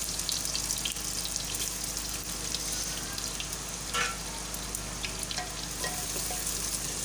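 Sliced onions sizzling steadily in hot oil in a clay handi, with a steady hiss and fine crackles as they begin to fry.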